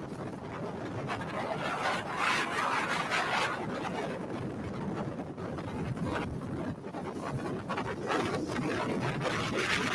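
Strong wind rushing and buffeting at the microphone near a tornado, a rough noise that swells and falls without any steady tone.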